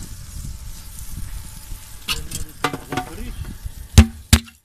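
Skewered meat sizzling over hot coals in a charcoal tandoor, under a low rumble. Two sharp, loud knocks about four seconds in.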